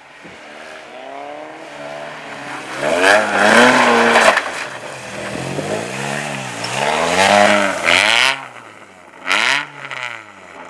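Car engine driven hard on a track, revving up and falling back over and over as it accelerates and lifts off, loudest about three to four seconds in and again near eight seconds, then quick short revs near the end.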